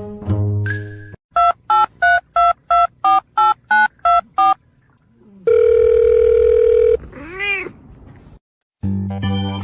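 A quick run of about nine short electronic beeps, then one long steady beep, then a brief rising-and-falling meow from a cat. Music plays at the start and comes back near the end.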